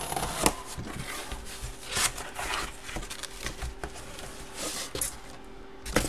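Cardboard box and packaging being handled: rustling and scraping with a few sharp taps and clicks.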